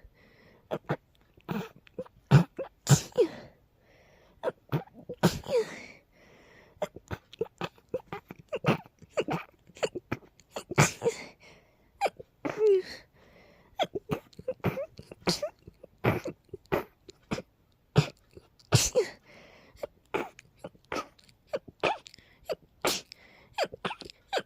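A person sneezing over and over in a long, uncontrollable fit: many short, sharp sneezes one after another with brief pauses between. The sneezes sound sleepy.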